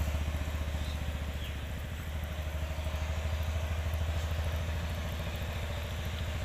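A small engine running steadily: a low, even drone with a fast regular pulse.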